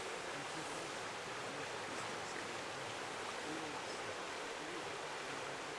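Steady, even rush of a creek pouring over fallen logs.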